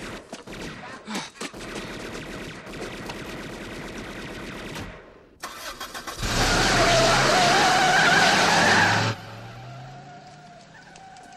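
A car engine revs hard and its tyres squeal for about three seconds as the car takes off, then the sound cuts off sharply and the engine fades away. Before it come several seconds of rustling, crashing and thumps.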